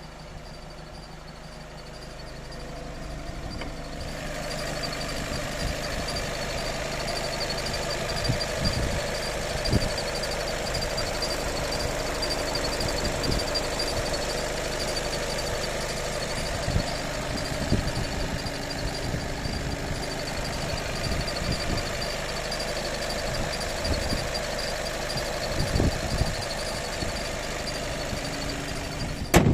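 Volkswagen Golf Mk7 making the strange noise its owner is asking about: a steady mechanical running sound with a thin high whine that grows louder about four seconds in, and irregular dull knocks every few seconds. It ends with a sharp click.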